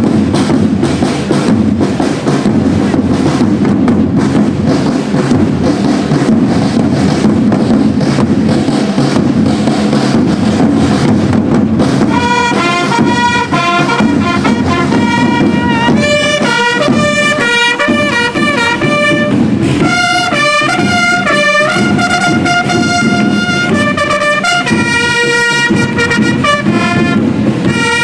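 A corps of marching drums playing a fast, steady beat. About twelve seconds in, a trumpet fanfare comes in with held notes in changing chords, and the drumming carries on underneath.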